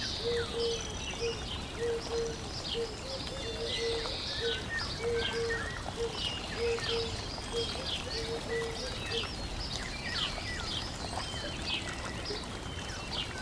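Birdsong ambience: many short, high chirps and trills, with a lower short call repeated about twice a second that stops about two-thirds of the way through.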